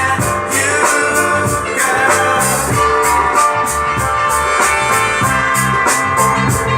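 Recorded band music with a drum kit keeping a steady beat under layered instruments.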